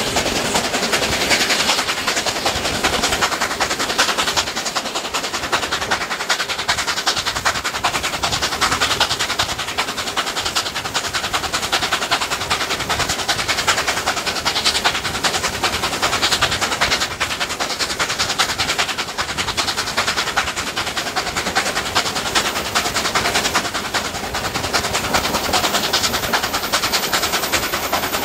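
Steam locomotive 3801 under way, heard from a carriage window: a steady stream of rapid exhaust beats and the clatter of carriage wheels on the rails, with rushing wind, keeping an even pace.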